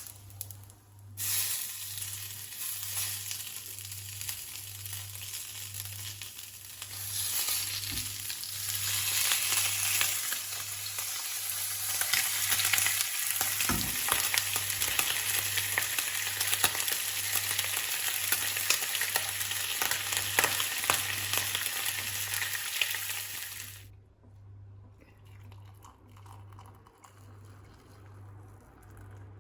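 Food sizzling and crackling in a hot frying pan. It grows louder partway through and stops suddenly a few seconds before the end. A low hum pulsing about twice a second runs underneath.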